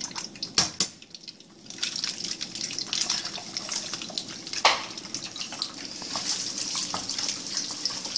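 Egg frying in hot oil in a pan: a steady sizzle that starts about two seconds in, after a couple of sharp taps, with one sharp knock about halfway through.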